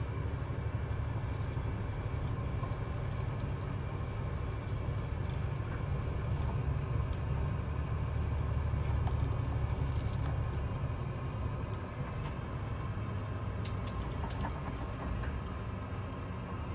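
Route bus heard from inside the cabin while driving: a steady low engine and road rumble, swelling slightly midway, with a few faint clicks.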